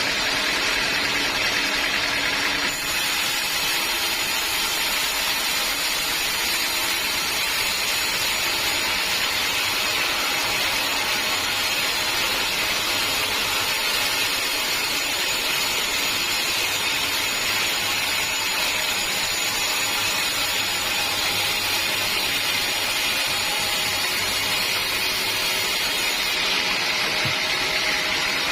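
Sawmill running steadily as it cuts through a teak log. The high cutting hiss comes in about three seconds in and eases off near the end.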